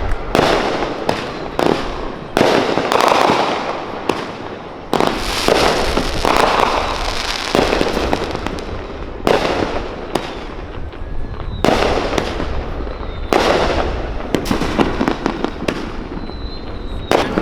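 Fireworks going off: an irregular string of sharp bangs, often several in quick succession, each trailing off in a rumbling echo.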